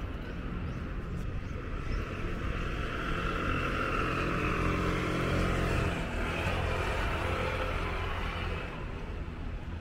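A motor vehicle driving past, growing louder toward the middle and then fading.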